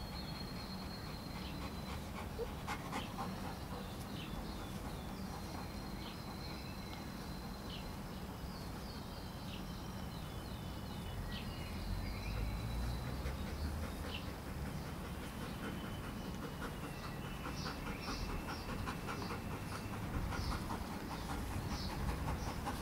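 A large black dog panting as it walks at heel, over a steady low rumble of wind on the microphone.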